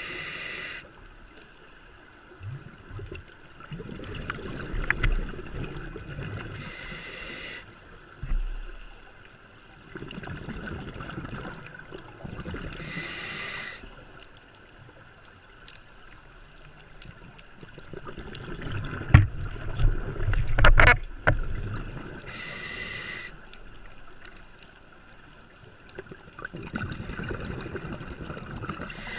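Scuba diver breathing underwater through a regulator: a short hissing inhale about every six to nine seconds, each followed by a few seconds of rumbling exhaust bubbles. A few sharp clicks during one exhale are the loudest moments.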